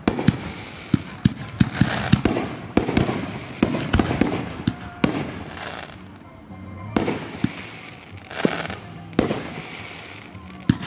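Aerial fireworks going off: a rapid, irregular series of sharp bangs from shells firing and bursting, each followed by a hissing, crackling trail.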